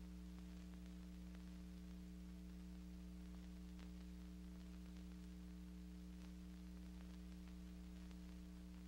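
Faint, steady electrical mains hum with light hiss and a few scattered soft crackles: the empty soundtrack of a silent archival film transfer.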